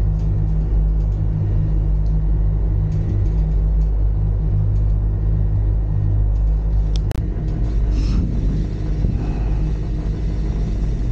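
Gozaisho Ropeway gondola running along its cable, a steady low rumble and hum inside the cabin. About seven seconds in there is a sharp click, followed by a rougher rattling rumble as the carriage passes over a support tower.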